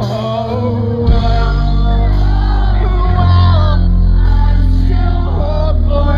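Pop-punk band playing live through a festival PA, with singing and heavy bass, heard from within the crowd on a phone microphone. A hit about a second in, after which the band plays fuller and louder.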